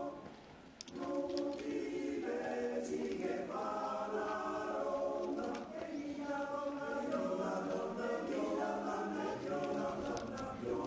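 Choir singing unaccompanied in held chords, with a short pause between phrases about a second in.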